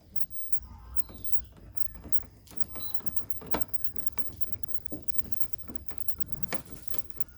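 Scattered clicks and knocks of screws and a hand tool as screws are fitted back into the car's front trim, with two sharper clicks about three and a half and six and a half seconds in.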